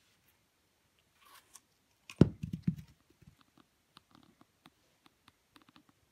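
A Hamiltonstövare puppy biting and chewing an apple: a dull thump with a short run of knocks about two seconds in, then soft scattered crunching clicks.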